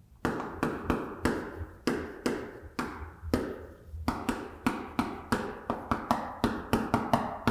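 Chalk writing on a chalkboard: a quick run of sharp taps and short scrapes, about three a second, as characters are written stroke by stroke.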